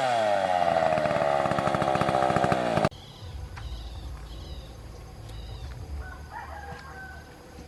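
STIHL chainsaw engine dropping from high revs toward idle, then cutting off abruptly about three seconds in. Outdoor ambience follows, with repeated short bird chirps and a brief bird call about six seconds in.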